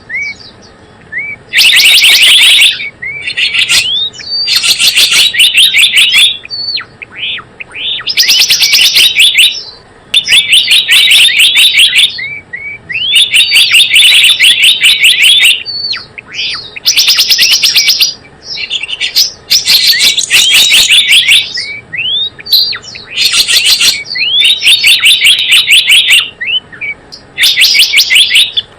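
Recorded lure call of a gelatik bloong bird, played loud: bursts of rapid, chattering chirps about a second long, repeating every two to three seconds, with short single rising chirps in between.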